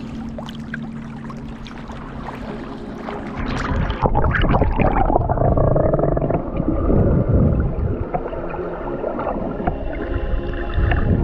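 Sea water lapping and splashing around a GoPro action camera held at the surface; about four seconds in the camera goes under and the sound turns muffled and dull, with gurgling and sloshing as it moves through the water.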